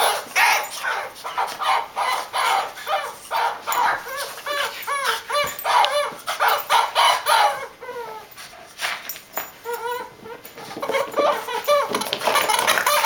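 Toy chicken clucking: a quick run of short squawky clucks, each arcing up and down in pitch, that thins out and stops about ten seconds in. A steady noisy rustle rises near the end.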